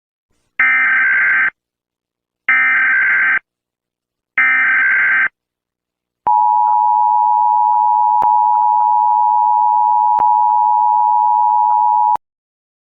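Emergency Alert System alarm: three harsh bursts of data-header tones, each about a second long, then a long steady attention tone lasting about six seconds that cuts off abruptly.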